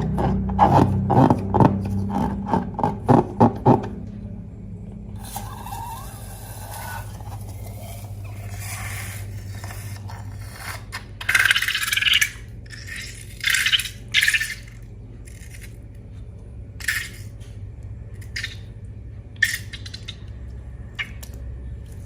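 Rhythmic music that stops about four seconds in, followed by scraping and rustling handling sounds, louder for a few seconds in the middle, with a few sharp clicks near the end.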